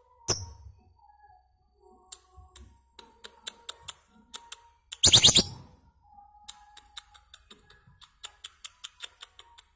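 Lovebird calling: runs of sharp, rapid ticking chips, with a loud harsh shriek about five seconds in and a shorter one just after the start.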